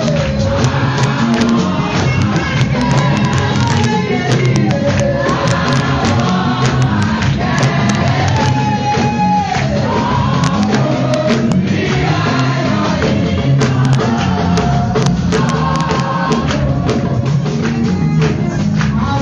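Live gospel music in a church hall: a woman singing a melody into a microphone over amplified accompaniment with steady percussion.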